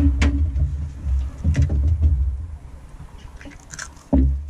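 A hen's egg knocked twice in quick succession on the rim of a bowl to crack it open, over a low rumble. A further thump about four seconds in.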